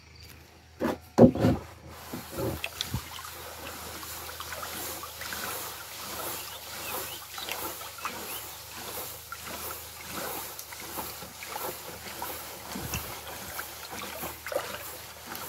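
Water sloshing and swishing in a black plastic bucket as a hand stirs KRT plus boron fertilizer into it, in a steady rhythm somewhat under two swishes a second. Two sharp knocks come about a second in.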